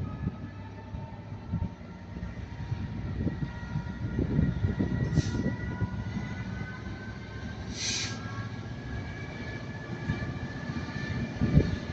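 Class 67 diesel-electric locomotive pulling a train away, its engine note rising slowly as it accelerates, over a low rumble from the train. Two short hisses come about five and eight seconds in.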